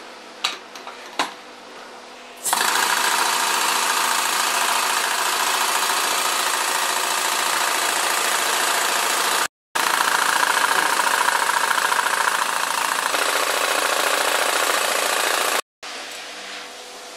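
Paint can shaker running, shaking a clamped can of paint with a loud, steady mechanical noise. A few clicks come first as the can is set in, the machine starts suddenly about two and a half seconds in and stops near the end, with two brief complete dropouts along the way.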